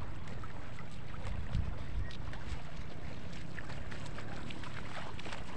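Steady wind rumbling on the microphone at an open seashore, with faint distant sounds from a crowd in the shallows.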